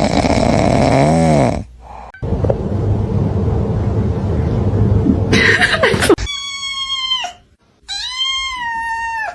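A cat meowing twice: two drawn-out meows of about a second each, their pitch falling at the end, coming after several seconds of louder, unpitched noise.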